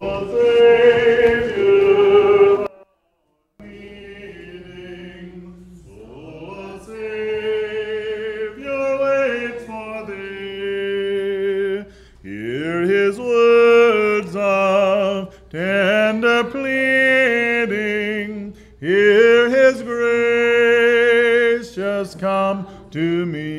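Congregation singing an invitation hymn a cappella, led by a song leader at the microphone, with voices in harmony and no instruments. The sound cuts out completely for under a second about three seconds in.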